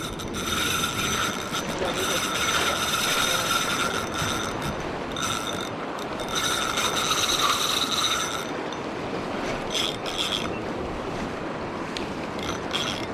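Spinning reel being cranked on a lure retrieve: a steady gear whine that breaks off briefly twice and stops about eight seconds in, followed by a few faint clicks.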